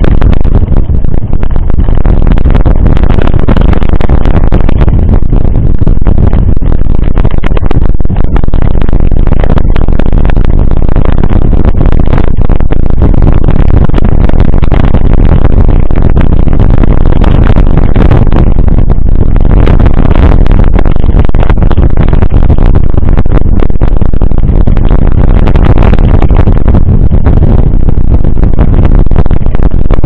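Wind buffeting a bike-mounted action camera's microphone, loud and steady enough to max out the recording, mixed with crackling rattle and tyre rumble as the mountain bike rolls over a wet gravel road.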